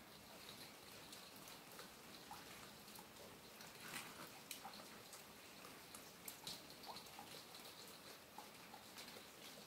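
Near silence with faint scattered clicks and ticks from a rat moving about and drinking at a plastic water dispenser, over a low steady hiss.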